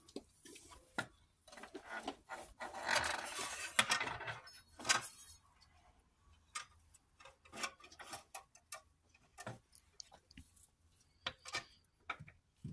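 Irregular small metal clicks, taps and scraping as a balance shaft is worked through the block of a VW EA888 2.0 TSI engine and lined up with its rear bearing, with a longer stretch of rubbing and scraping a couple of seconds in.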